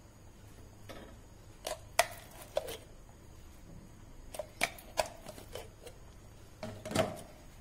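A spoon and a wooden spatula knocking and scraping against a frying pan while mayonnaise is dropped into thick, creamy pasta: a scatter of short, sharp clacks, the loudest about two seconds in and again near the end.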